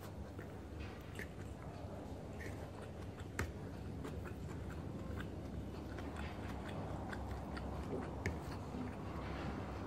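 A person chewing a mouthful of rice and adobo squid eaten by hand, with many small mouth clicks, one sharper about three and a half seconds in, over a low steady hum.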